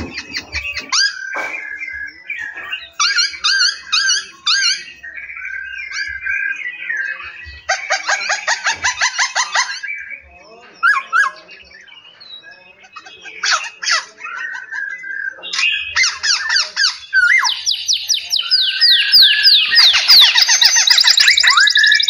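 Several caged songbirds singing and calling over one another: repeated chirps, whistled phrases and fast trills. They grow louder and denser over the last few seconds.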